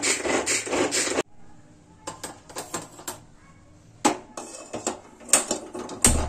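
A hand-pulled string vegetable chopper whirring and rasping in quick strokes, which cuts off about a second in. Then a handheld spark gas lighter is clicked at a gas stove burner, with scattered sharp clicks that grow louder in the last two seconds.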